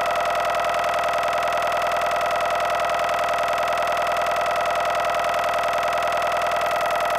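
Live electronic noise music from a laptop and controller: a loud, steady, siren-like drone of stacked high tones with a fast, even flutter, holding unchanged through the stretch.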